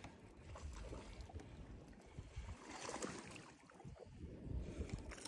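Faint wind on the microphone with water lapping against the hull of a bass boat, an uneven low rumble and soft hiss.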